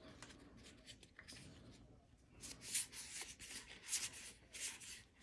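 Magic: The Gathering cards sliding against each other in the hands as they are moved one by one through a freshly opened pack. The result is soft papery swishes, with only a few faint ticks at first and then a run of them about every half second from halfway through.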